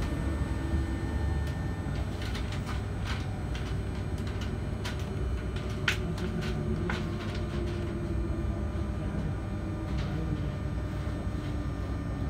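Inside a Z 20500 double-deck electric commuter train running along the line: a steady low rumble with scattered sharp clicks and knocks, the loudest about six seconds in.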